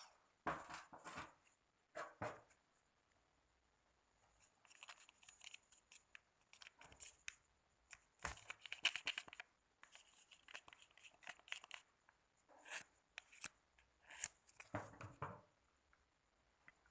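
Irregular bursts of crackling and rustling from close-up hand work with slime-making materials, coming in uneven clusters with short pauses between.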